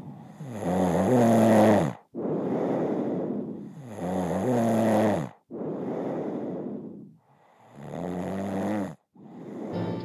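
A woman snoring heavily in regular cycles: a loud, rasping, pitched snore about every three and a half seconds, with a breathy exhale between each one.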